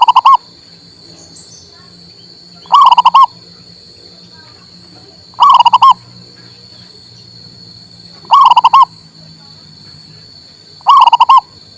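Male zebra dove cooing: five short, loud phrases of a few quick rolling notes each, repeated about every three seconds. A faint steady high-pitched whine runs underneath.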